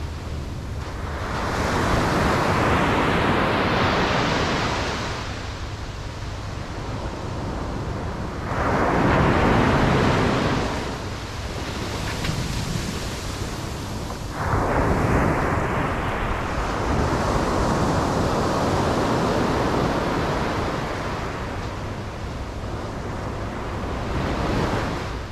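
Surf on a beach: waves breaking and washing up in three swells, the first about two seconds in, the next about eight seconds in, and the last starting about fourteen seconds in and running on for several seconds.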